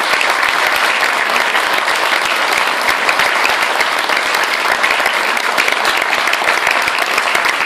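Audience applauding steadily: dense clapping from many hands in a hall.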